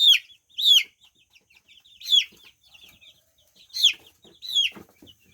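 Young chicks peeping: about five loud calls that each slide quickly downward in pitch, with softer short peeps from other chicks in between.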